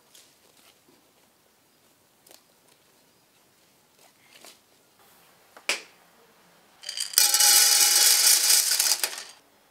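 Dry chickpeas poured from a clay bowl into an enamel basin: a loud, dense rattle lasting about two seconds, starting about seven seconds in, with the basin ringing under it. Before it, faint scattered clicks and one sharp click.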